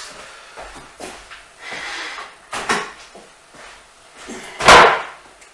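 Kitchen drawers and cupboard doors being handled: a few scattered knocks and a rattle, then one loud thump about four and a half seconds in.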